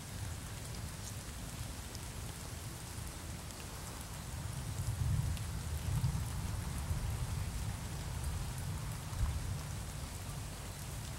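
Steady rain falling, with scattered drop ticks, over a low rumble that swells a few times around the middle.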